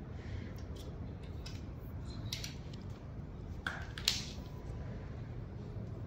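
Gloved hands handling a fat-bike tyre and the pump hose at its valve: scattered light clicks and two short rustling hisses, about two and four seconds in, the second one louder, over a steady low hum.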